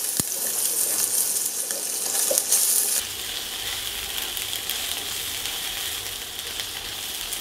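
Tofu cubes, shallots and garlic sizzling in hot oil in a non-stick frying pan, with small clicks as they are stirred with wooden chopsticks. About three seconds in the sizzle becomes a little quieter.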